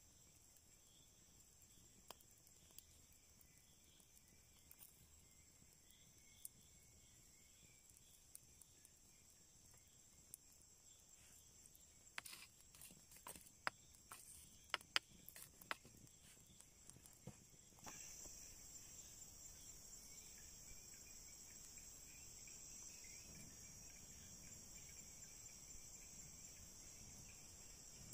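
A small wood campfire crackles faintly, with a cluster of sharp pops about halfway through. Underneath is a steady high chirring of insects, which grows louder about two-thirds of the way in.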